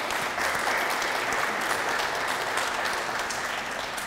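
Audience applauding: a crowd clapping steadily, dying down near the end.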